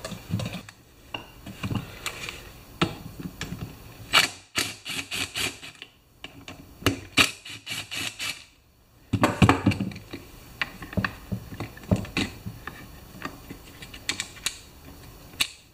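Clicking and rattling of a hand screwdriver, screws and small parts on a chainsaw's plastic housing as the carburetor is unbolted, in several short bursts of quick clicks with brief pauses between them.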